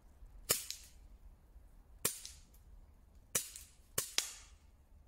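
STTi SP8 gas airsoft pistol, a non-blowback green-gas replica, firing single shots: about five sharp pops at uneven intervals, the last two in quick succession.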